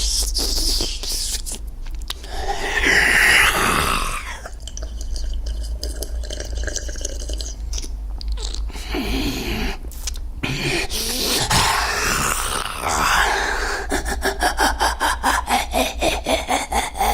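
Vocal foley of a vampire biting and sucking blood: wet slurping, sucking and rasping mouth sounds, turning into a quick, rhythmic run of pulses, about five a second, near the end.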